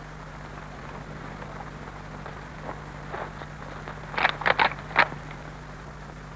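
Steady low hum and faint crackle from an old Super 8 projector's optical sound track, with a quick run of four sharp clicks or knocks about four seconds in.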